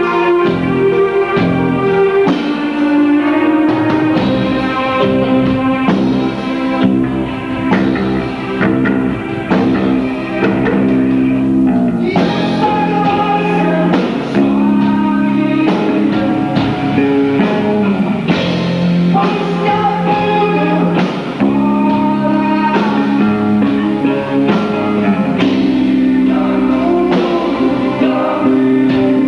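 Live rock band playing: guitars and a drum kit keeping a steady beat, with a singer's voice over them.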